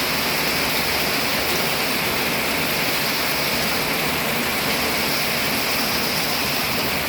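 Heavy rain pouring down steadily in a thunderstorm, a loud unbroken hiss of falling water.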